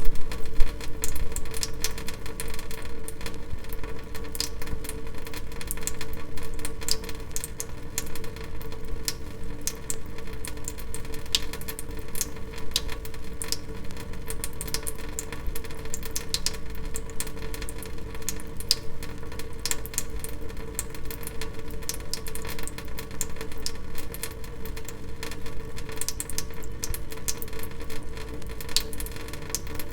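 Water dripping in quick, irregular drops, many sharp little clicks a second, over a steady hum.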